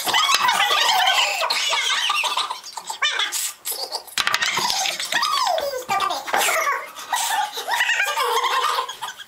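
People laughing in repeated bouts, with a little speech mixed in.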